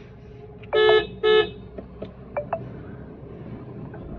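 Car horn giving two short toots about half a second apart, over the steady low hum of a car cabin.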